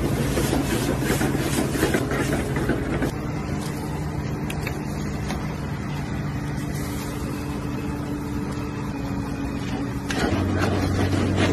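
Commercial kitchen noise: a steady low machine hum with hiss, as from gas burners and extraction running. The hum shifts about three seconds in and again near the end as the shots change, and the first few seconds also carry a crackly, sizzling noise.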